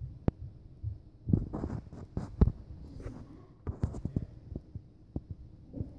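Handling noise from a handheld camera: irregular clicks, knocks and low thumps close to the microphone, busiest in the middle seconds.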